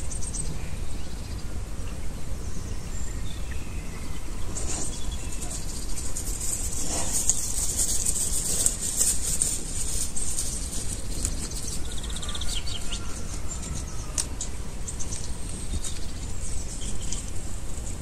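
Garden birds chirping and calling, over a steady low rumble. A louder stretch of high hiss and rustling runs from about four to ten seconds in.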